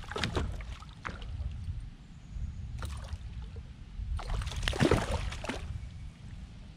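Hooked chain pickerel splashing and thrashing at the water's surface while being played on the line: a short splash at the start and a longer, louder flurry of splashing from about four to five and a half seconds in.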